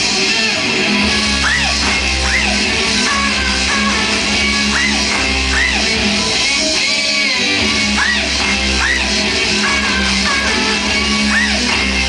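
Loud live rock music led by electric guitar, dense and steady, with short rising swoops that recur every second or so.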